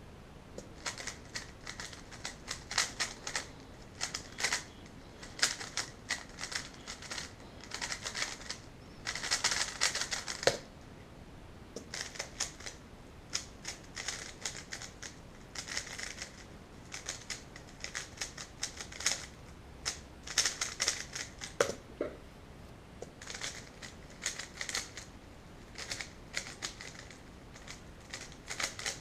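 A 3x3 Rubik's Cube being turned at speed: rapid clattering clicks of the layers in bursts of a second or two with short pauses between, and a couple of sharper knocks.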